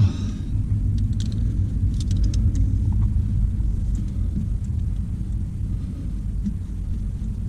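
Wind rumbling steadily on the microphone, with a few light clicks about one and two seconds in.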